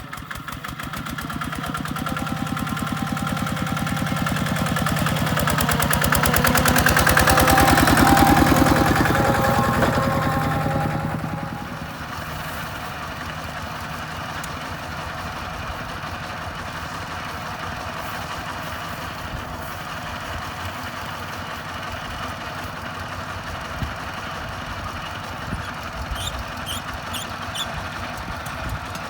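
Diesel engine of a farm machine working hard with a rapid, even chug, growing louder for about eight seconds, then dropping sharply about twelve seconds in to a steady idle.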